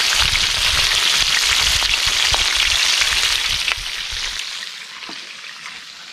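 Pieces of fish deep-frying in hot oil in a wide pan: a steady crackling sizzle with scattered pops, which falls away sharply about four seconds in.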